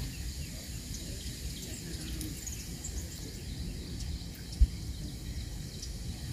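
Outdoor riverside ambience: a low steady rumble with a few faint bird chirps, and one short dull thump about four and a half seconds in.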